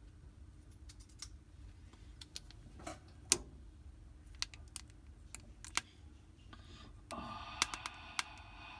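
Small clicks and taps from handling a thermal paste tube and its packaging, with one louder click about three seconds in and a stretch of rustling from about seven seconds on.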